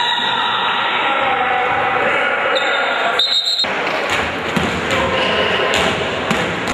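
Basketball game sounds in a gymnasium: the ball bouncing and thudding on the hardwood court, with voices of players and spectators carrying through the hall.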